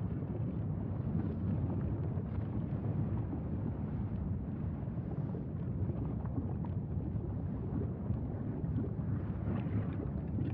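Steady low roar of a Mauna Loa lava fountain erupting from its fissure vent, with faint scattered crackles.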